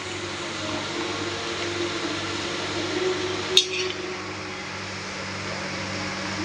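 Jackfruit pieces frying in hot oil in a kadai, a steady sizzle, as a perforated metal skimmer scoops through the oil; the skimmer strikes the wok once with a sharp clink about three and a half seconds in.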